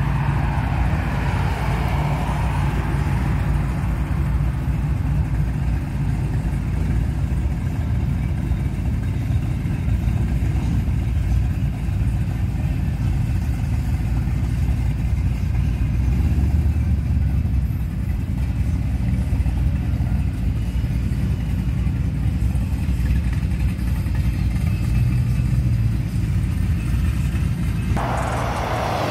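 Car engine and traffic noise: a steady low rumble of vehicles moving slowly.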